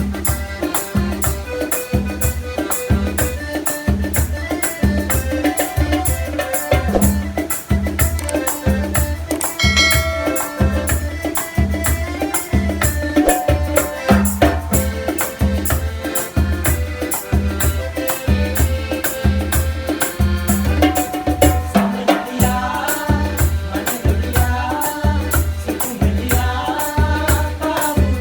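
Instrumental calypso-style Sinhala pop music with a steady, even bass beat, a fast shaker rhythm on top and melody lines over it.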